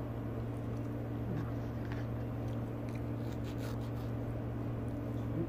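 Steady low mechanical hum, with a few faint clicks of a knife cutting through soft mango flesh about three to four seconds in.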